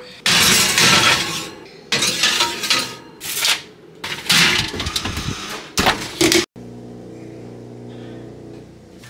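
Glass baking dishes clinking and scraping against the counter and the oven's wire rack, in a run of loud clattering bursts. About six and a half seconds in this stops abruptly and gives way to a quiet, steady low hum.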